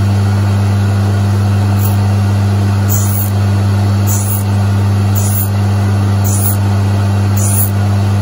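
Brierley drill grinder running on its three-phase motor with a steady low hum, while a small drill's point is ground on the wheel: a brief high hiss of wheel on drill tip about once a second from about three seconds in, as the cam-driven chuck strokes the tip against it.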